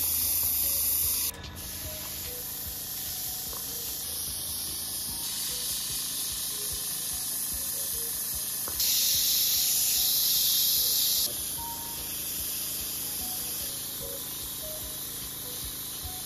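Airbrush spraying paint, a steady hiss of air. It is louder at the start and again for a couple of seconds in the middle.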